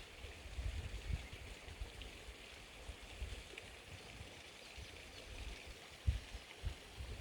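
Faint outdoor ambience by the water: a steady soft hiss with uneven low wind rumble on the microphone, and two short low thumps near the end.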